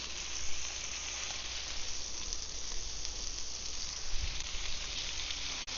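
Blackened yellowfin tuna steak sizzling steadily on a hot grill, dropping out briefly near the end.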